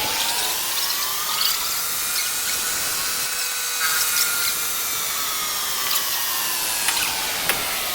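Machine tool's electric spindle motor running with a steady whine. Its pitch rises gently, then eases back down as the speed changes, with a few light ticks through it.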